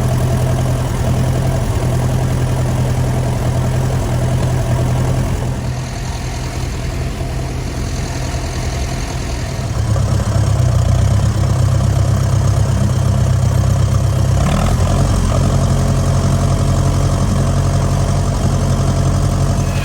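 Engine running steadily at low revs, a low even hum that gets louder about ten seconds in.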